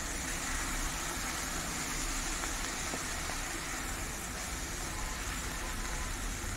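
Thick prawn and egg curry frying and sizzling in a nonstick pan as it is stirred with a spatula. The masala has cooked down until the oil separates. A steady low hum runs underneath.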